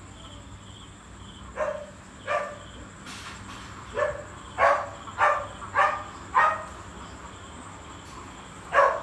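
Dog barking: about eight short barks, two early, then five in quick succession about half a second apart, and one more near the end.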